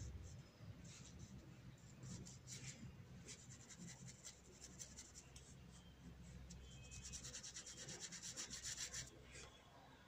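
Paintbrush strokes on paper: faint, scratchy rubbing in short repeated strokes, with a quick, louder run of strokes shortly before the end.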